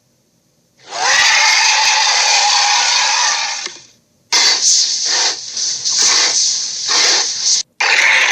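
Dragon sound effects: a loud, harsh, hissing roar of about three seconds, then a pulsing, sputtering stretch of about three seconds, then another roar starting near the end. Each starts and stops abruptly, with little bass.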